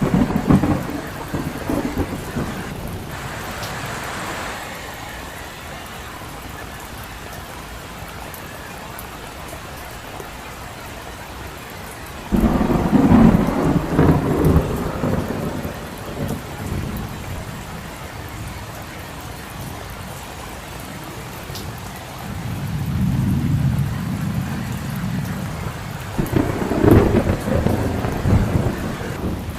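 Steady rain falling on a street, with low rolling rumbles of thunder: one starts suddenly about twelve seconds in, others swell near the start and again towards the end.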